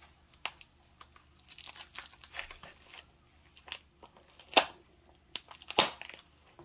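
Packaging around packs of airgun ammo being handled: scattered crinkling and crackling, with two sharper crackles in the second half.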